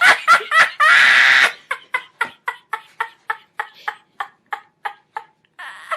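A person laughing hard. About a second in comes a loud, breathy shriek, followed by a steady run of short, high-pitched 'ha' pulses, about four a second, that fade and end in a breathy gasp.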